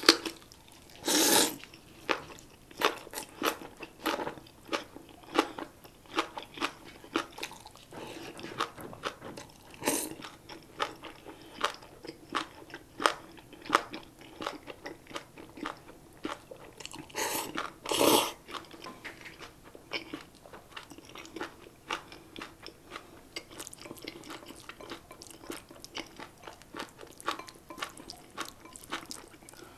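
Close-miked eating: a person slurping instant ramen noodles and chewing with wet clicks and crunches, the crunch from spicy napa cabbage kimchi. Two longer, louder slurps come about a second in and again around eighteen seconds.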